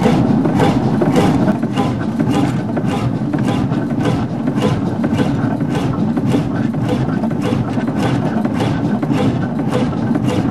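Hundested 45 HP single-cylinder two-stroke hot bulb (semidiesel) marine engine running steadily, with an even beat of about three firing knocks a second.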